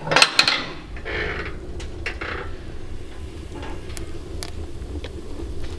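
Latch handle of a steel Fisher wood stove turned and the firebox door pulled open with a metallic clatter. About a second in, the low steady rush of the wood fire's draft takes over, with a few sharp crackles from the burning logs.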